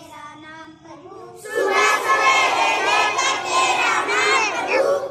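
A large group of schoolchildren chanting a prayer in unison, softly at first and then in loud full voice from about a second and a half in.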